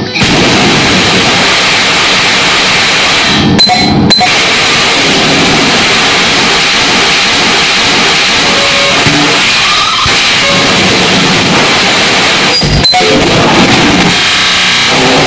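Harsh digital noise music: a loud, dense wall of noise across the whole range, with short stray tones poking through. The noise cuts out abruptly for an instant about three and a half seconds in, again about four seconds in, and once more near thirteen seconds.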